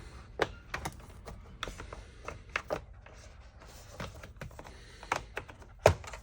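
Scattered plastic clicks and taps of a trim panel popper tool prying up car carpet and its clips, with the loudest knock near the end.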